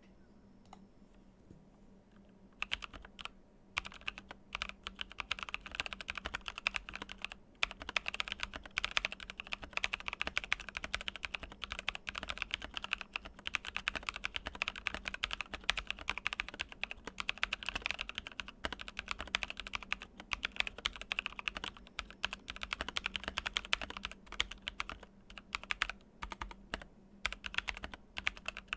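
Rapid, continuous typing on a Keychron K8 aluminum mechanical keyboard with lubed NovelKeys Cream linear switches and foam mod, starting about two and a half seconds in with a couple of brief pauses. The switches still have a scratchy sound despite the lube, as they are new and not yet broken in.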